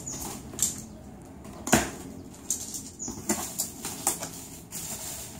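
Cardboard box flaps and plastic packing rustling and scraping as hands rummage inside the box. The sounds come in irregular knocks and scrapes, the sharpest just under two seconds in.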